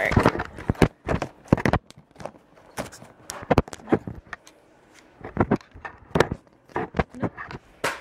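Camera handling noise: a string of irregular knocks and clicks as the camera is moved about and set against surfaces to balance it.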